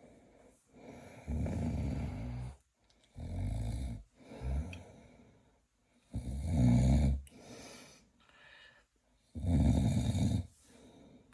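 A sleeping person snoring heavily: four long, low, rattling snores a few seconds apart, with a short snort right after the second one.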